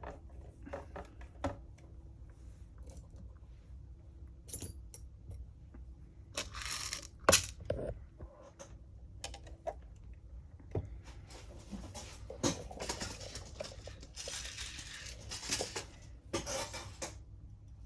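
Hand work on small plastic and metal model parts: scattered clicks and light metallic clinks, with several short rustling scrapes.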